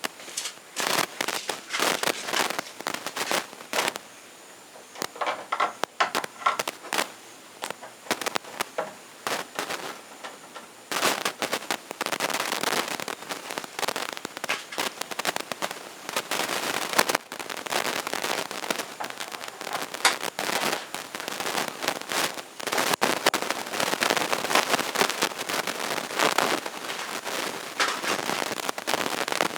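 Dense crackling and rapid clicking of plastic parts and wiring being handled while a replacement washing machine controller board is fitted. It is sparser at first and becomes nearly continuous about eleven seconds in.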